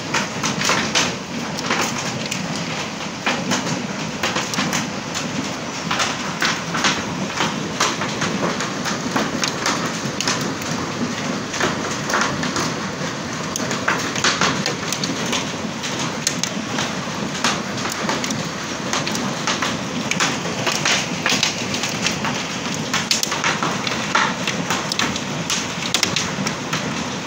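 Heavy hailstorm: hailstones pelting hard surfaces in a dense, irregular clatter of impacts over a steady rushing sound.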